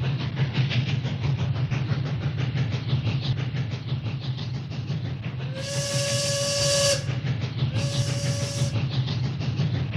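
Battery-powered plastic toy train running on its track, a steady motor whir with a fast rattle. About halfway a steam-whistle sound with hiss toots twice, the first about a second and a half long, the second shorter.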